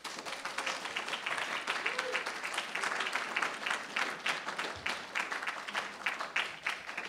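Audience applauding: many hands clapping together, starting at once and dying away near the end.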